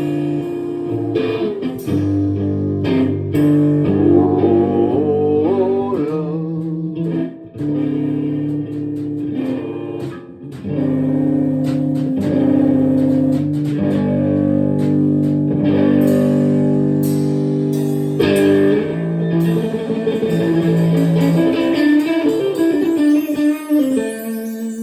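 Guitar playing held, ringing chords with a bass line underneath, changing chord every second or two, then dying away near the end.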